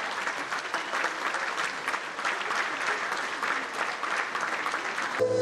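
A large crowd applauding steadily, many hands clapping together. Just before the end, the applause cuts off abruptly into music.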